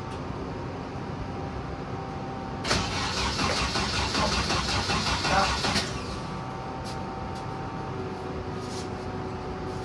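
A car engine being cranked by its starter for about three seconds, with a rhythmic pulsing, then stopping without the engine running on. A steady hum sits underneath throughout.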